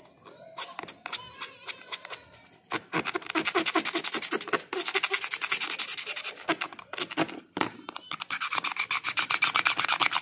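Steel knife tip scraping back and forth across a Samsung feature phone's screen, scratching it. A few separate scrapes at first, then rapid continuous rasping strokes from about three seconds in, with a couple of brief breaks.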